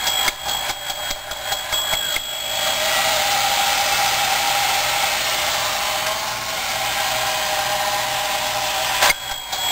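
Battery-operated tin toy fire engine by WE Toy Co. Its drive rattles with rapid clicks for the first couple of seconds. Its small electric motor then whirs steadily while it stands and swings its automatic ladder up and back down. A sharp click comes about nine seconds in, and the clicking drive starts again.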